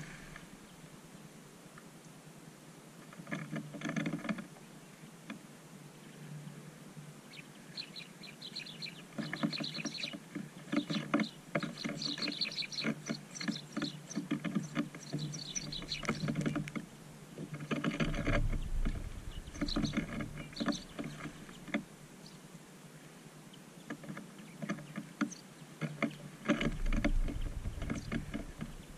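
A flock of small songbirds arriving at seed scattered on snow: bursts of fluttering wingbeats as they fly in and land, with short high chirps. Twice there is a low bump close by.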